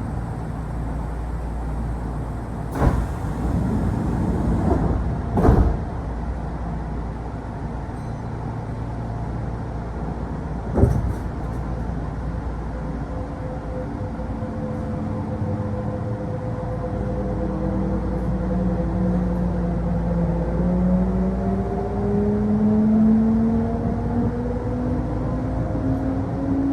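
Inside a Kintetsu local electric train: the sliding doors shut with two heavy thumps, and there is another knock about eleven seconds in. The train then pulls away, its traction motors whining in several tones that rise steadily in pitch as it accelerates over a low running rumble.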